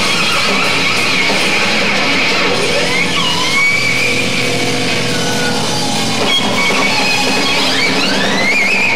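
Lap steel guitar played with a slide in live rock music, its notes gliding up and down in pitch, with a long rising glide about three seconds in and another near the end.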